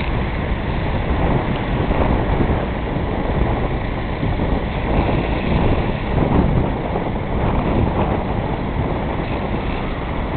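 DAF truck with a Schäfer bitumen-spraying installation running steadily, its engine and pump going while EM60 bitumen emulsion is sprayed onto the road surface from a hand lance.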